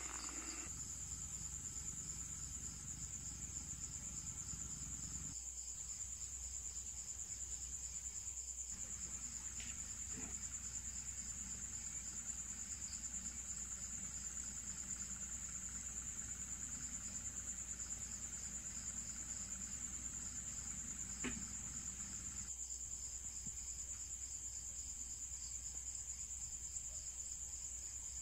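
A cricket trilling steadily: a continuous high-pitched song with a fine rapid pulse. A faint low hum sits beneath it.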